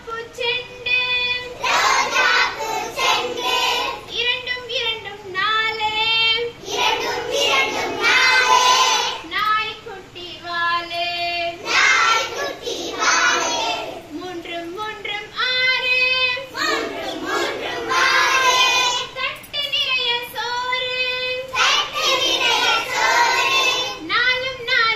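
A group of young children singing a Tamil counting and addition song together, phrase after phrase.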